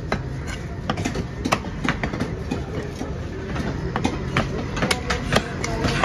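Large knife chopping fish on a wooden log chopping block: a dozen or so sharp, irregular knocks over a steady low background rumble.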